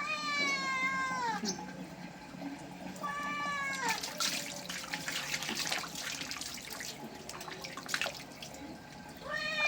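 A cat being given a bath meows twice, two long calls that fall in pitch at the end, then water splashes and runs for several seconds. Another meow begins near the end.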